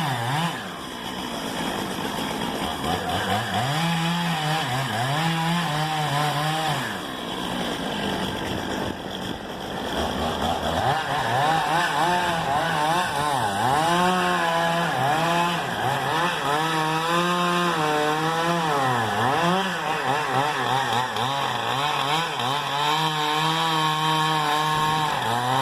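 Gas chainsaw cutting into a large tree. The engine note sags again and again as the chain bites into the wood, then climbs back. The saw eases off for a few seconds about seven seconds in, then cuts steadily again.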